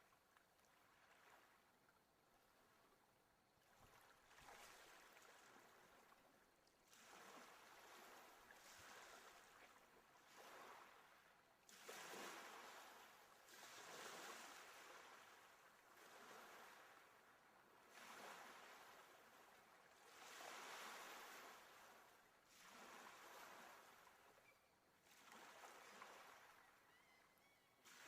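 Faint sea surf: a rushing wash of waves that swells and fades about every two seconds.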